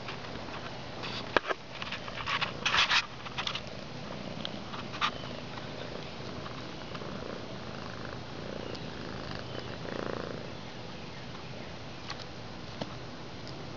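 Water hissing steadily from a leaking brass garden-hose coupling, with a cluster of sharp crackles and clicks about one to three seconds in.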